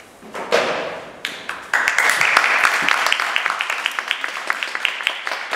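Audience applauding, starting with a few scattered claps and swelling to full, dense applause about two seconds in.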